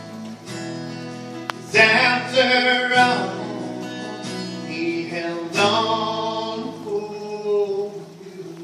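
A man singing a Christian song to his own acoustic guitar accompaniment, the voice coming in loud about two seconds in.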